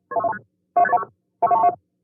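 Sound effect of short electronic multi-tone bursts, three in quick, even succession, each with a shifting pitch pattern.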